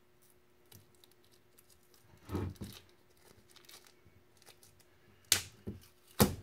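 A pipe clamp being handled and adjusted by hand: a rough scraping rub a little over two seconds in, small clicks, then two sharp clacks about a second apart near the end.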